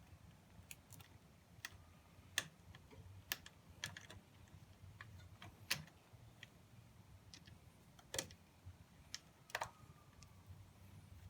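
Scattered light clicks and taps at an irregular pace from parts and tools being handled on a motorcycle during a battery install, with a faint low hum underneath.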